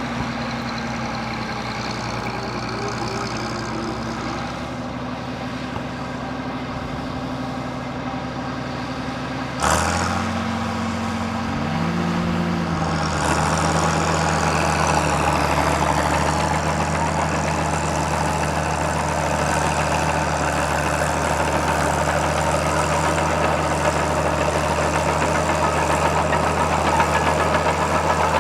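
Fiat 1355C crawler's 8.1-litre Fiat-Iveco diesel engine running steadily while ploughing. About ten seconds in the sound changes abruptly, and the engine note then rises and holds steady, a little louder.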